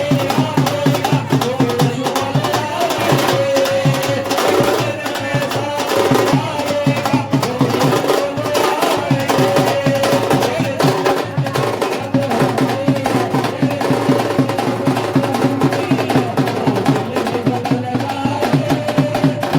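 Loud, steady music with a fast, dense percussion beat and a held melody line.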